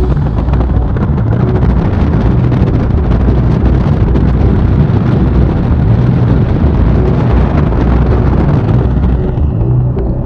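BMW R 1250 GS boxer-twin motorcycle running on the road, a steady low engine drone with wind rushing over the microphone.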